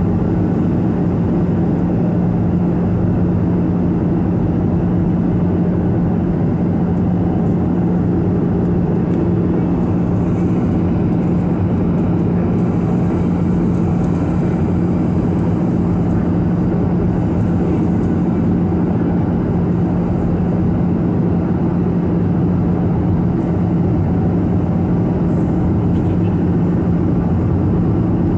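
Steady cabin noise of a Boeing 737-800 in cruise or descent, heard from a window seat over the wing: the drone of its CFM56-7B turbofan engines and rushing air, with a steady low hum under it.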